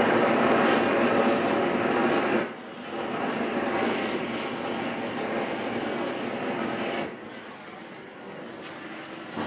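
Large propane burner running with a steady roaring hiss. It drops sharply in level about two and a half seconds in, and again about seven seconds in.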